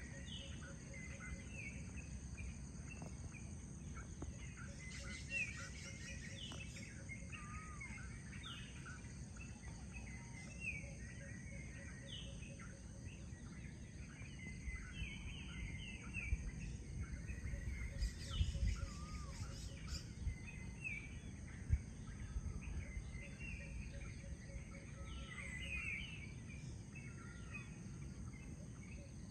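Many birds chirping and calling in a continuous chorus of short notes and occasional down-slurred whistles, over a steady high-pitched insect drone and a low background rumble.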